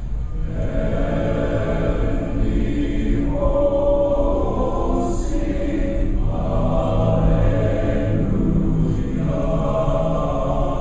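Large men's chorus singing, holding long chords that change every couple of seconds.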